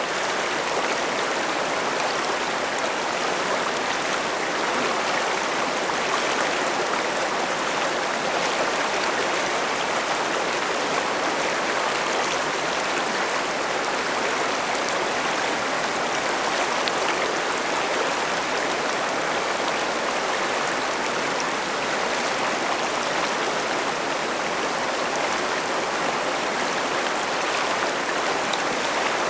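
A river running steadily over rocks, a dense, even rush of flowing water with no pauses.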